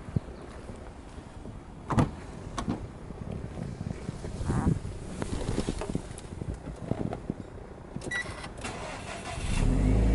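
A few clicks and knocks and a short beep, then about nine and a half seconds in the Subaru Impreza WRX STI's 2.0 L turbocharged flat-four boxer engine starts and settles into a loud low rumble.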